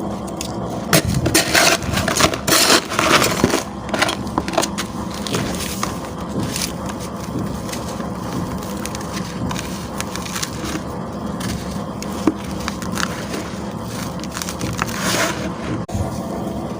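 Crunchy crumbling and scraping of dry, gritty chunks, likely hardened cement, crushed by hand. A dense run of sharp crunches comes in the first few seconds, then softer steady grinding and crackling, with another burst of crunches near the end.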